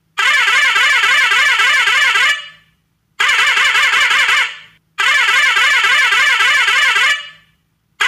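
Indian truck's musical novelty horn sounding three long blasts with a warbling, wavering pitch and short silent gaps between them.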